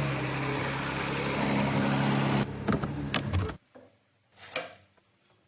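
A steady mechanical running sound, a low hum under a hiss, that changes with a few clicks and then cuts off abruptly about three and a half seconds in, leaving near silence.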